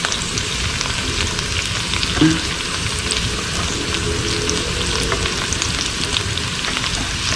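Bacon-wrapped enoki mushrooms sizzling in hot oil in a wok, a steady hiss dotted with small crackles, with occasional touches of metal tongs as the bundles are turned.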